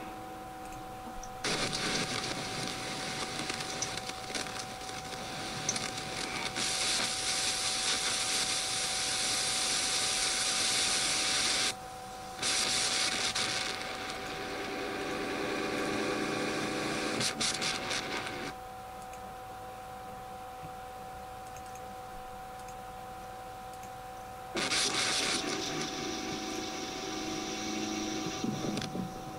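A voice run through stacked voice-changing effects (echo, chorus) coming out as long stretches of harsh, hissing noise, with a pause of about six seconds near the end, over a steady electronic tone.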